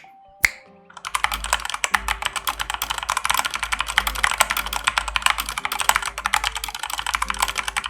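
Two sharp snaps in the first half second, then from about a second in fast, continuous typing on a Redragon Fizz K617 mechanical keyboard, many keystrokes a second.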